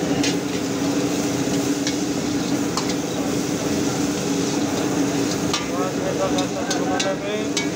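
Sliced green capsicum sizzling in hot oil in a metal wok while a metal ladle stirs it, scraping and clicking against the pan.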